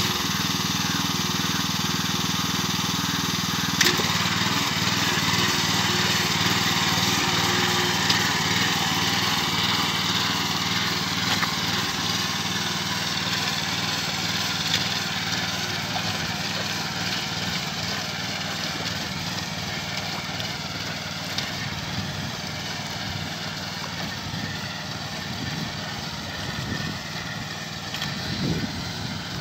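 Small engine of a walk-behind rice transplanter running steadily as the machine plants, growing fainter as it moves away.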